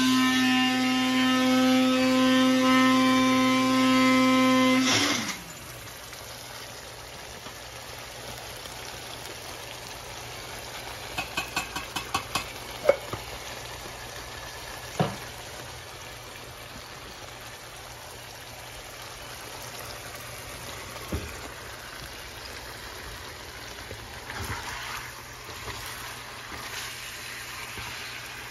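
Electric spice grinder's motor running with a steady high hum, switched off about five seconds in and winding down. Then a low background with a few clicks and knocks of a wooden spatula stirring chicken pieces in a metal frying pan.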